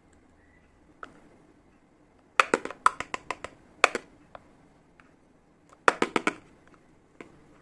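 Small hard pieces of a mini toy kitchen set clicking and tapping together as they are handled, in two quick clusters of several sharp clicks about two and a half and six seconds in, with a few single clicks between.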